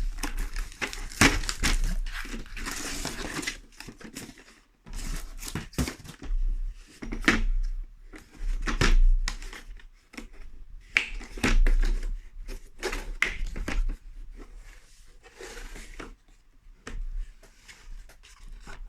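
Packaging crinkling and tearing as a brake line flaring tool kit is unpacked, with scattered sharp clicks and knocks from handling the parts.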